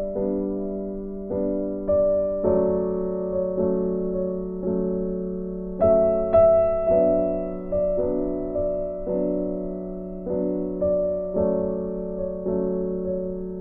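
Background music: a soft piano melody, notes struck about twice a second and left to ring.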